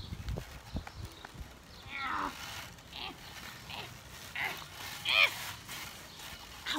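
A big Neapolitan Mastiff clambering onto a person in a hammock: low thumps and shifting in the first second or so, then several short high-pitched vocal cries, the loudest a little past the middle.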